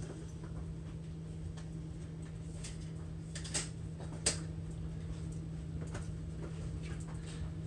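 Inside a train's passenger cabin as it rolls slowly through a station: a steady low hum with scattered light clicks, and two sharper clicks about three and a half and four seconds in.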